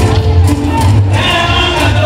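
Loud dance music with a heavy, pulsing bass beat.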